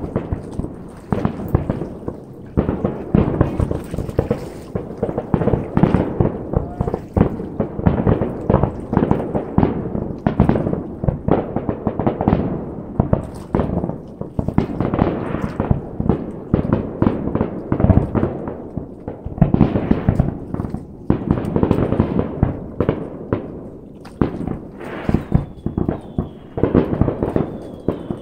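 Fireworks display going off in a continuous barrage of bangs and crackling bursts, several a second. A thin, high, wavering whistle joins near the end.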